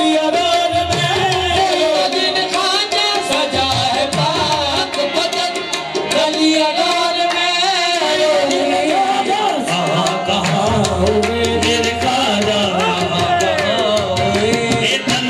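Qawwali performance: a qawwal party singing with tabla drumming keeping a steady rhythm.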